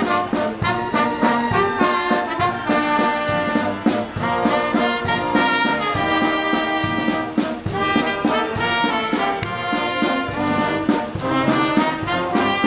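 Military brass band playing a march, brass over a steady drumbeat.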